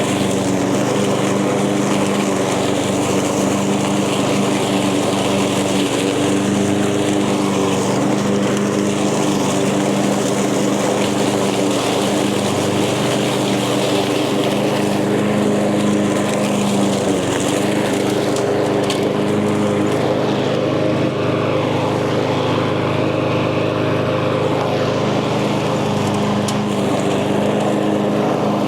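Echo gas lawn mower engine running steadily while cutting tall, thick vegetation.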